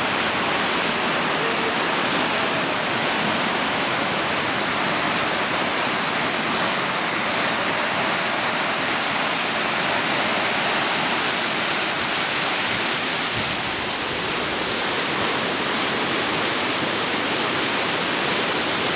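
Fast, silt-laden river rushing below a footbridge: a steady, loud, unbroken wash of water noise.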